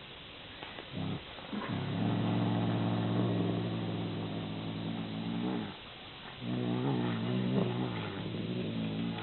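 Domestic cat giving low, drawn-out yowls. Two short calls about a second in are followed by two long steady-pitched yowls, each several seconds long, with a brief pause between them.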